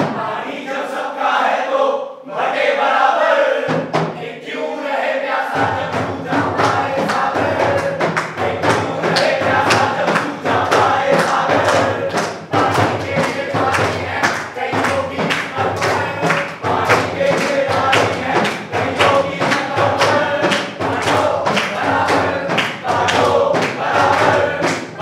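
A group singing in chorus over a hand-beaten frame drum keeping a steady beat, the drum coming in fully about five seconds in.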